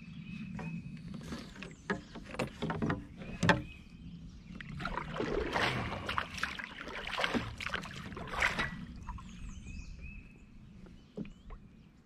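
Kayak paddle strokes splashing in the river water, with a few sharp knocks of the paddle against the kayak before the splashing builds. The splashing is loudest in the middle and fades away after a few seconds.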